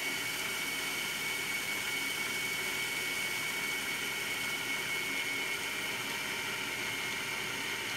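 Braun food processor's motor running steadily with a high whine over a hiss, its blade chopping green chillies and oil into a paste.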